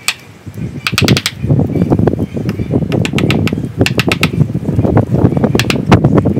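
Hand chisel gouging and scraping the dead wood of a ficus bonsai trunk: rough scraping strokes, dense from about a second and a half in, with quick clusters of sharp clicks.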